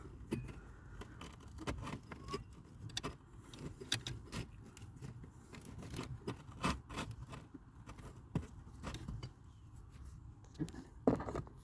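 A new cabin pollen filter, soft pleated media with a card top rail, being slid up into its plastic housing: faint scraping and rustling with scattered light clicks and knocks.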